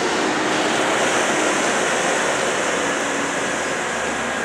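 Steady roar of a heavy-haul truck and multi-axle trailer rolling past, tyre and engine noise with a faint low engine hum.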